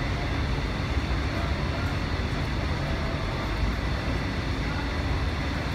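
Steady urban background noise on an elevated metro platform: an even low rumble of traffic and station machinery with a faint hiss, no single event standing out.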